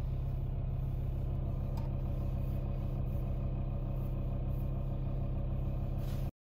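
Volkswagen T5 Transporter's engine idling steadily, a low hum heard from inside the cab; it stops abruptly near the end.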